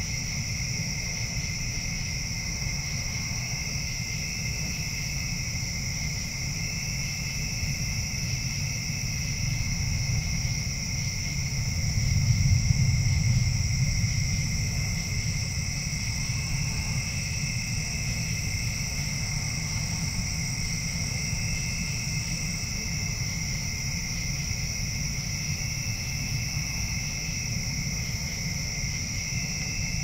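Steady chorus of night-singing insects, a continuous high-pitched drone at two pitches. Under it runs a low rumble that swells briefly about twelve seconds in.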